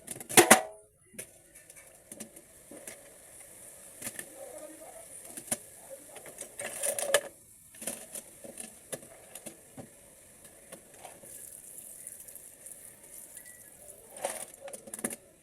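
Light clicks and metal taps from handling an automatic transmission valve body and setting its small steel balls back in place, with two louder bursts of handling noise, one just after the start and one about seven seconds in.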